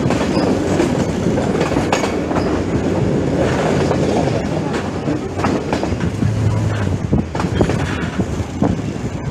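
A moving passenger train heard from an open carriage window: steady running noise with irregular clickety-clack of the wheels on the track.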